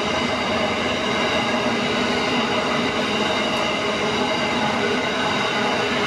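Hopper wagons of a coal train rolling past close by: a steady, unbroken rush of steel wheels on rail with several constant whining tones running through it.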